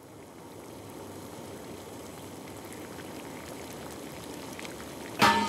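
A pot of sauce simmering, a steady bubbling hiss that fades in from silence. Near the end a sudden loud hit is followed by a ringing tone.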